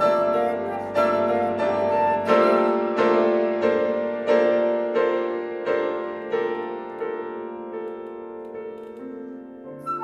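Petrof grand piano playing a run of repeated struck chords, about one every two-thirds of a second, each ringing out, gradually fading toward the end.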